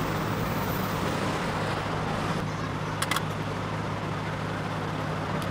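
Steady low mechanical hum with a haze of street noise, and a couple of short sharp clicks about three seconds in.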